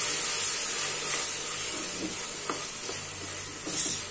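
Chopped onions, tomatoes and green chillies sizzling in hot oil in an aluminium pressure cooker while a wooden spatula stirs and scrapes them, with a few light knocks of the spatula against the pan, the loudest near the end.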